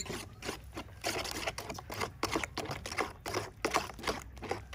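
A metal spoon stirring a thick, wet mixture of raw ground pork, fish eggs and duck egg in a stainless steel bowl: repeated squelching, scraping strokes, about three or four a second.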